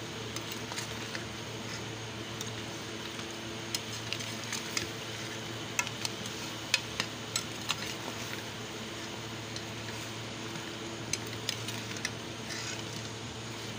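Chicken feet frying in spice masala with a steady sizzle, while a metal spoon stirs them and clicks and scrapes against the metal pot now and then, most often around the middle. A low steady hum runs underneath.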